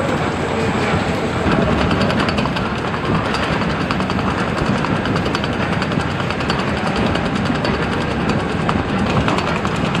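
Potato sorting conveyor running: a steady machine rumble with a constant fine clatter of potatoes rolling over the rollers.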